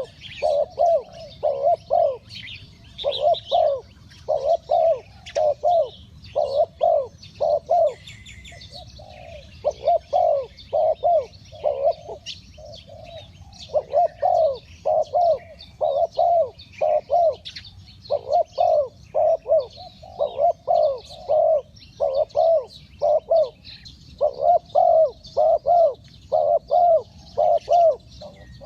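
Spotted dove cooing over and over in short phrases of three or four low notes, with brief pauses between phrases. Smaller birds chirp faintly and higher in the background.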